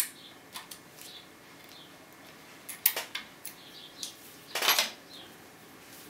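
Steel lock-picking tools clinking and rattling against the brass cylinder and metal vise: a sharp click at the start, a quick run of clinks about three seconds in, and a longer rattle near five seconds.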